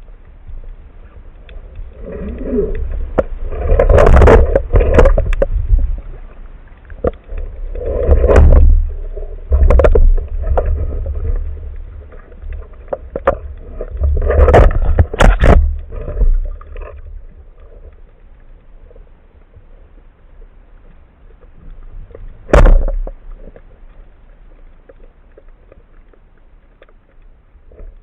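Water gurgling and sloshing against an underwater camera in loud bursts, with low rumble and scattered knocks. One sharp knock comes near the end.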